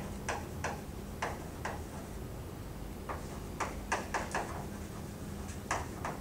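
Chalk tapping and scraping on a blackboard while words are written: a run of short, irregular clicks.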